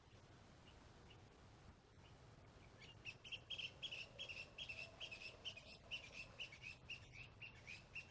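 A bird chirping in a quick, even series of short high notes, about three or four a second, starting about three seconds in. The chirps are faint, over a low steady background hum.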